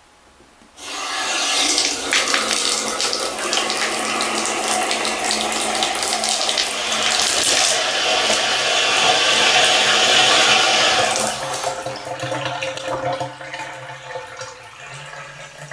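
Water running from a Moen Roman tub faucet's spout into the bathtub, turned on suddenly about a second in and shut off around eleven seconds, then trailing off in drips. The faucet has just been refitted with a new cartridge and is being run as a test.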